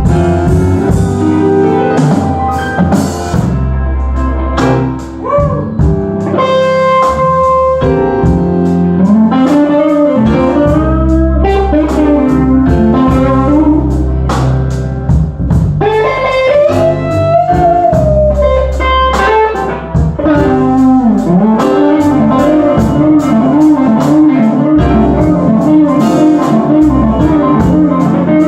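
Live blues-rock band playing: a guitar lead with bending, wavering notes over a drum kit and a steady low end.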